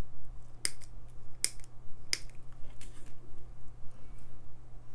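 Small flush side cutters snipping through the very thin leads of cheap resistors to cut them off their paper tape strip. There are three sharp snips in the first two and a half seconds, then fainter clicks of handling, over a low steady hum.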